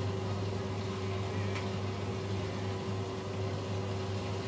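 Steady low hum with a faint higher tone over a light hiss: room tone. One faint tick about one and a half seconds in.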